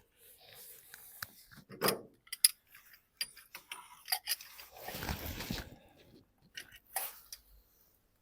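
Hand-work noises while the alternator drive belt is worked off its pulleys: sharp clicks and knocks of tools and metal parts, light scraping, and a longer rubbing rasp about five seconds in.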